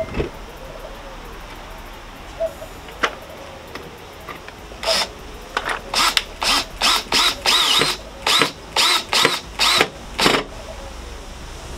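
Makita cordless drill/driver run in short trigger bursts against a speaker cabinet's panel, each a brief whir with a rising whine. A few bursts come spaced out, then a quick run of about a dozen from about five seconds in.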